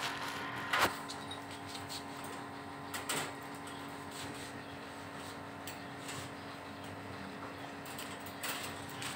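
Wire pet cage knocking and rattling as a kitten bats at a feather wand toy through the bars: a sharp rattle about a second in, another around three seconds, and a smaller one near the end, over a steady background hum.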